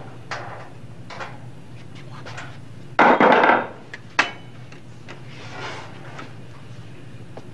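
Objects being handled on wooden shelves: several light knocks and clicks, a louder scraping clatter lasting under a second about three seconds in, and a sharp knock just after it, over a steady low hum.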